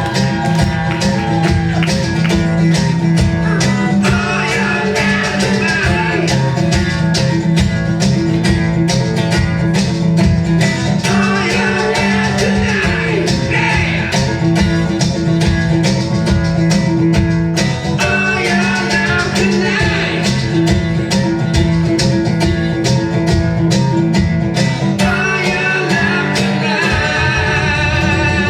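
A band playing a country-style song with guitars and a singing voice, steady beat throughout.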